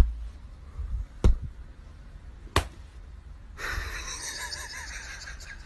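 Three sharp slap-like taps, evenly spaced about a second and a quarter apart, then a few seconds of soft rustling hiss.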